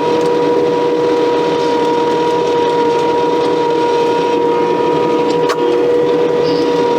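Case skid steer running a hydraulic stump grinder attachment, heard from inside the closed cab: a steady, even whine over the machine's running noise, with one sharp click about five and a half seconds in.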